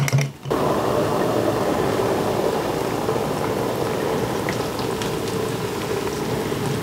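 Water pouring from a kettle's spout into a metal mess tin holding instant noodles, a steady splashing rush that starts about half a second in.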